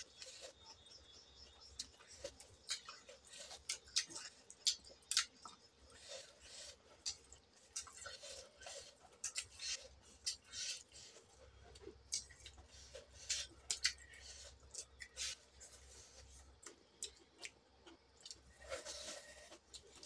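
Eating sounds: chewing of chicken curry and rice, in irregular short clicks, with fingers mixing rice on the plate.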